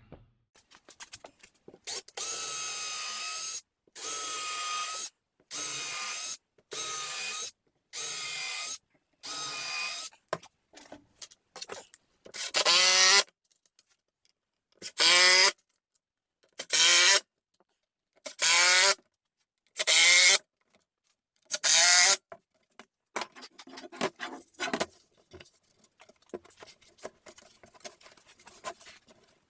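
Cordless drill driving screws into a wooden form: six short, even bursts, a brief pause, then six more bursts that rise in pitch as each one starts. Softer clatter and rubbing of wood being handled follows near the end.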